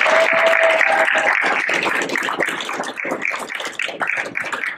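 Audience applause: a dense patter of hand claps that thins out and dies away toward the end, with a short held shout from someone in the crowd near the start.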